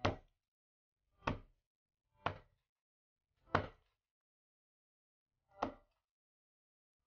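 Meat cleaver chopping chicken on a plastic cutting board: five sharp chops at uneven intervals.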